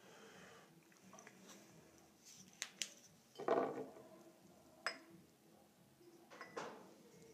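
Drinking glasses handled on a tabletop: a few light clinks and knocks of glass, one with a brief ring.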